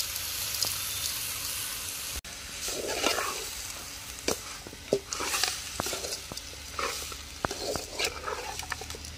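Raw country-chicken pieces sizzling in a steel pot over a wood fire while a metal slotted spoon stirs them, scraping and clinking against the pot. A steady sizzle fills the first couple of seconds; after a short break comes a run of irregular scrapes and sharp clinks as the meat is turned.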